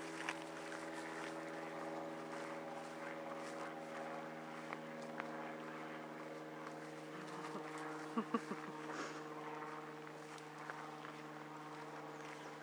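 A distant engine drones steadily at an unchanging pitch. A few short pitched sounds come through about eight seconds in.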